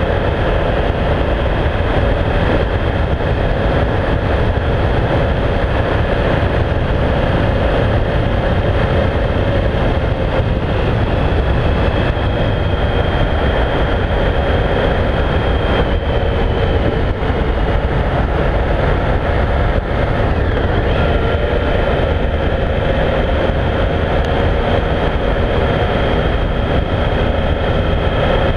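Triumph Speed Triple's three-cylinder engine running at a steady cruise while riding, with wind rush on the microphone. The engine note holds steady, shifting only slightly in pitch.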